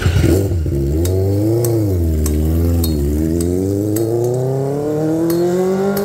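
Benelli 600i's 600 cc inline-four engine being revved through its twin exhaust. The pitch rises and falls twice, then climbs steadily through the last three seconds, with a few sharp clicks scattered through it.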